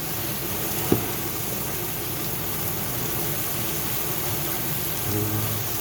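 Fresh spinach sizzling steadily in a hot pan with butter and garlic as it wilts, with a single sharp clack about a second in.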